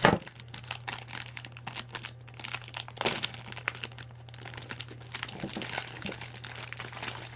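Packaging crinkling and rustling with many small crackles and clicks as a kendama is unpacked, with a sharp knock right at the start. A steady low hum runs underneath.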